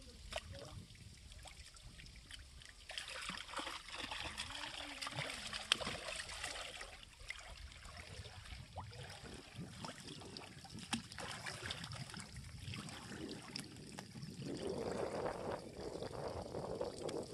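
Shallow water splashing and trickling as a wading angler works his line and a hooked baam eel struggles at the surface, with scattered small clicks and splashes. The splashing grows fuller and louder near the end as the eel is pulled out of the water.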